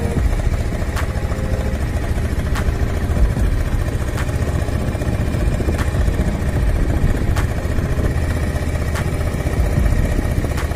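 Motorcycle engine running steadily while riding at low speed, mostly a low rumble, with a faint tick about every second and a half.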